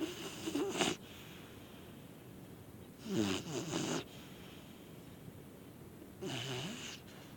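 Pit bull and American bulldog mix dog snoring in its sleep: three snores, each about a second long, about three seconds apart.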